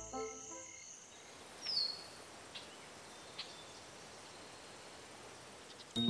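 Faint night ambience with insects: a soft steady hiss with a few sparse chirps, the clearest a short falling chirp about two seconds in.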